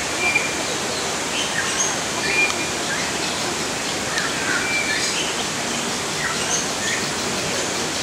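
Several birds chirping and giving short whistled notes at irregular intervals, over a steady background hiss.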